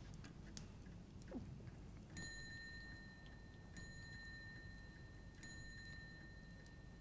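A small high-pitched bell or chime struck three times at an even pace, about one and a half seconds apart, beginning about two seconds in, each strike ringing on until the next. A faint low hum lies underneath.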